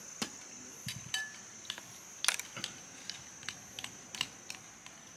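Irregular light clicks and taps from handling food and kitchen things, about fifteen in five seconds, with the loudest a little past two seconds in. A steady high-pitched whine runs underneath.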